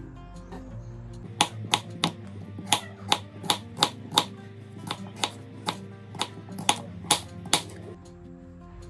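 Kitchen knife chopping vegetables on a wooden cutting board: a run of about fifteen sharp, uneven chops, two or three a second, starting about a second and a half in and stopping about a second before the end. Soft background music plays underneath.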